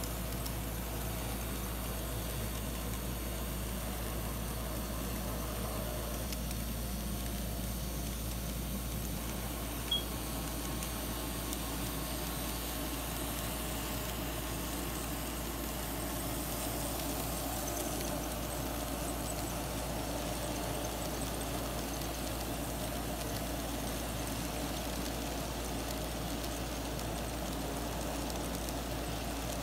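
N scale model trains running on Kato Unitrack: a steady whir of the small locomotive motors and the wheels rolling on the rails, over a constant low hum. One short tick about ten seconds in.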